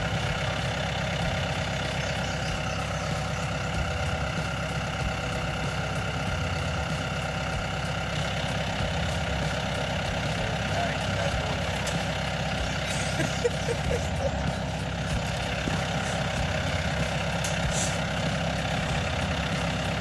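John Deere tractor engine running steadily as it pulls a water-wheel transplanter at low field speed.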